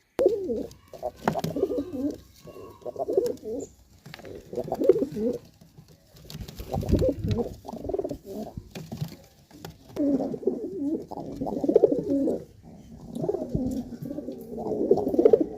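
Giribaz pigeons cooing in the loft, several birds' low coos overlapping in repeated phrases of a second or two with short pauses.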